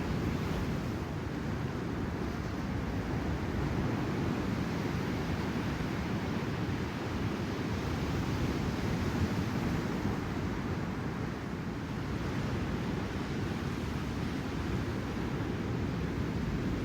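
Ocean surf breaking steadily, with wind rumbling on the microphone.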